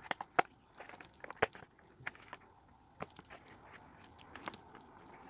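Plastic pickguard and single-coil pickups handled while a pickup is fitted into the pickguard: a few sharp clicks and taps, the loudest within the first second and a half, among scattered lighter ticks.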